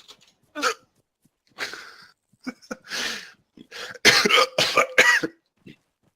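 A person coughing repeatedly in short fits, the loudest cluster about four seconds in, with short hiccups between the coughs: each cough sets off a hiccup.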